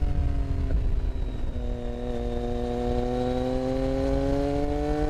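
Motorcycle engine heard from onboard while riding: the engine note eases down in pitch early on, then climbs slowly and steadily as the bike accelerates.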